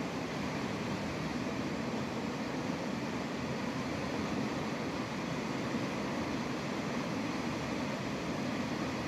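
A stream's flowing water, a steady even noise with no break.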